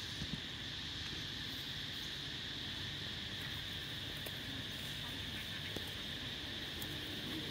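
Steady high-pitched drone of an insect chorus that never lets up, with a couple of faint clicks, one just after the start and one about six seconds in.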